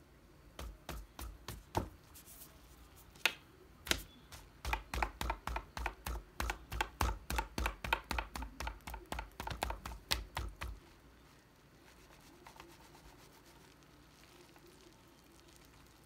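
A mesh stress ball filled with gel beads being squeezed and released over and over close to the microphone. A few scattered squishes come first, then a quick even run of about three a second that stops about two-thirds of the way through.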